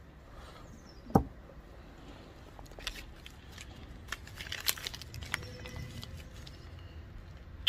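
A knife set down on a wooden bench with a sharp knock about a second in, followed by scattered small clicks and rustling as a padded envelope is handled and opened.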